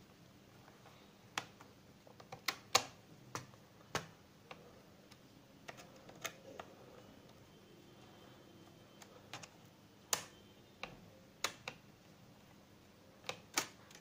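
Small screwdriver working the screws out of a laptop's plastic bottom cover: faint, irregular sharp clicks and taps of metal on screw heads and plastic, scattered through, with a few more clicks near the end as the cover comes free.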